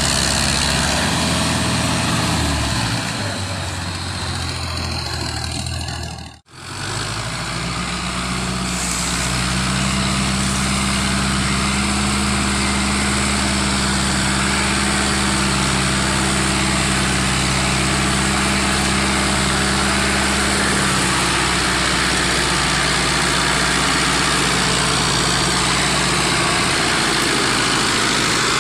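Fiat farm tractor's diesel engine running steadily while hauling a trolley heaped with sugarcane. The sound breaks off sharply for a moment about six seconds in, and the engine's pitch settles into a new steady note just after.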